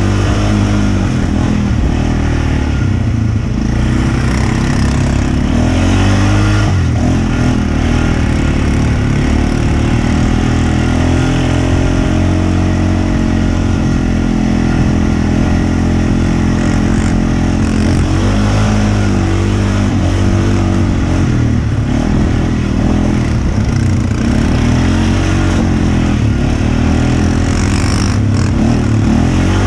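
Off-road vehicle engine running on the trail, its pitch rising and falling as the throttle is worked, with a run of short revs up and back down in the last third.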